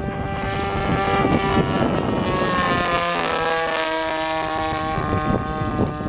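DLE-20 single-cylinder two-stroke gasoline engine of a radio-controlled P-51 Mustang model in flight, turning a 16x8 propeller, running steadily. Its pitch drops about three seconds in, then holds.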